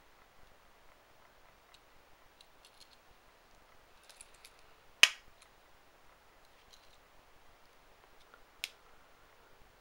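Wenger New Ranger 55 Scout folding knife's saw blade snapping shut with one sharp click about halfway through, then a lighter click near the end, with faint small clicks of the knife being handled.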